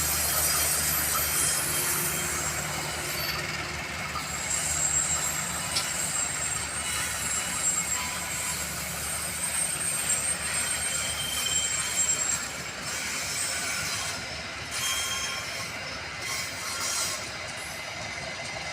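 Passenger train running along the station tracks, its wheels squealing at a high pitch over a rattling rumble. The sound slowly fades as the train moves away.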